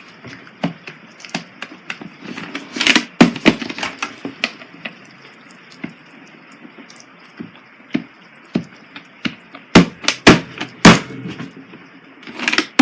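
Irregular knocks and clicks over a low background hiss, with a few loud sharp ones bunched together about ten seconds in.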